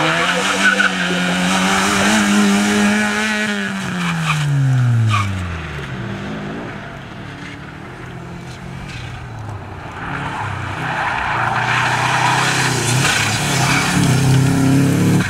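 A small rally hatchback's engine revs hard, then falls in pitch over about two seconds as it drives off. From about ten seconds in, a Subaru Impreza rally car's flat-four engine approaches with loud tyre and gravel noise as it slides through a turn.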